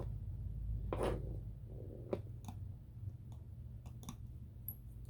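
Small parts and tools being handled during iPhone screen reassembly: a brief rustle about a second in, then scattered light clicks and taps, over a low steady hum.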